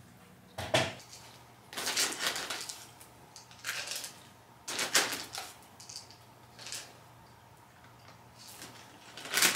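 Dry cat kibble rattling and its bag crinkling as the food is scooped out with a spoon and tipped into a bowl, in several short bursts. There is a single sharp knock about a second in.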